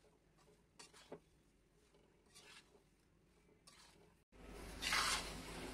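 Near silence with a few faint scrapes, then about four seconds in a low background hiss comes back and a spatula scrapes through wheat flour roasting in ghee in a kadhai.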